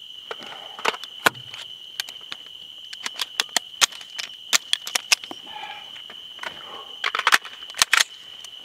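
AR-15-pattern rifle's action worked by hand to clear a malfunction: an irregular run of sharp metallic clicks and clacks from the charging handle, bolt and magazine, in a quick cluster about a second in and again near the end.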